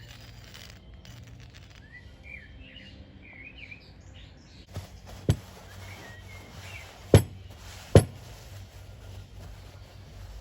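Birds chirping in the background, then four sharp knocks in the second half. The two loudest knocks come about a second apart, near the seven- and eight-second marks.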